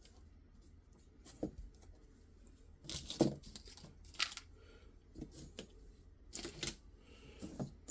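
Handling noises at a workbench: scattered short rustles, taps and clicks, about a dozen, as small boxed items and packaging are picked up and set down.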